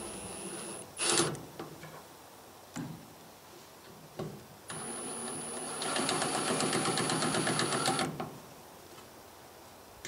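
Milwaukee FUEL brushless cordless driver driving the screws of a turn-signal lens and bezel. There is a short burst of the motor about a second in and a couple of knocks. A longer run starts about five seconds in and turns into a fast, even rattle for its last two seconds, as the screw seats.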